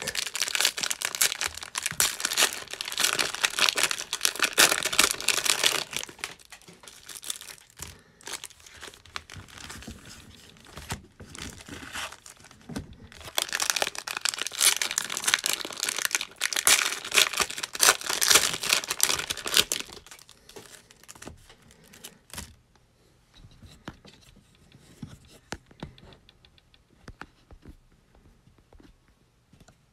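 Cellophane-wrapped trading card packs crinkling as hands shuffle and stack them, in two long spells of dense crinkling, dying down to faint occasional rustles over the last several seconds.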